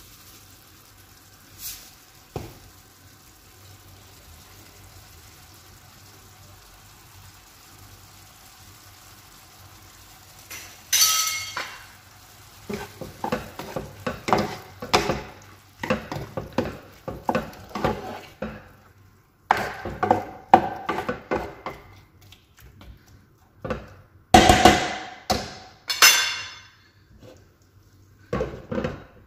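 Spatula stirring and scraping vegetables in a nonstick frying pan, with a faint sizzle underneath. After a quiet first third the stirring starts as a long run of knocks and scrapes against the pan, with the loudest clatters about three-quarters of the way through; near the end a glass lid is set on the pan.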